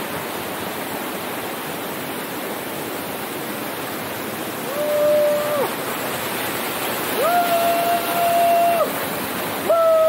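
A small waterfall rushing steadily into its pool. From about halfway in, a person's voice lets out three long, held whoops on a steady note, the last starting just before the end.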